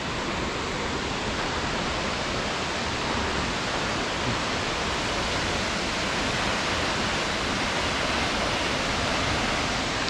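Steady rushing of Ramboda Falls, a 109 m waterfall.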